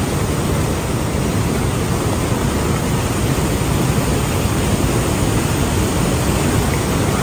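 White-water rapids of the Neelum River rushing over rocks: a loud, steady rush of water.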